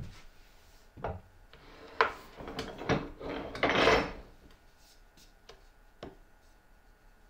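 Pieces of wood handled on a workbench: three sharp wood-on-wood knocks, then a short rubbing scrape, then two light taps as a plywood piece is brought down.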